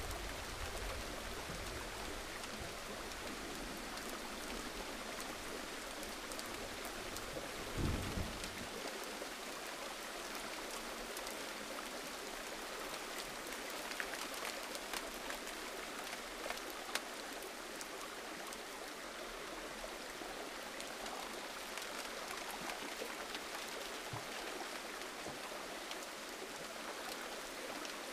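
Gentle rain falling steadily, with many individual drops ticking. There is a brief low thump about eight seconds in.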